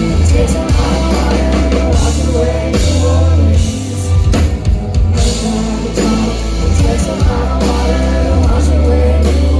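A country band playing live: singing over drum kit, bass and electric guitar.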